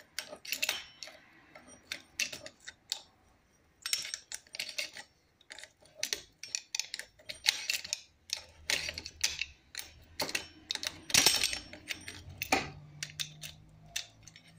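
Irregular small metal clicks and clinks of a spanner and pliers working the little bolts and nuts of a tensioner pulley as they are tightened, several a second, loudest about eleven seconds in.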